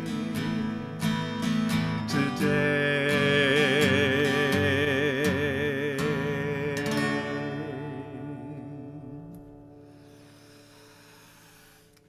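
Guitar strumming the closing chords of a song while a singer holds the final note with a wavering vibrato; the chords and voice stop about seven seconds in and the last chord rings out and fades away.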